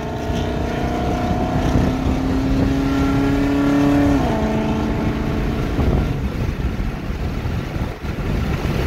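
Car engine accelerating, heard from inside a car cabin: its pitch climbs steadily for about four seconds, drops suddenly as it shifts up, and then gives way to road and wind noise.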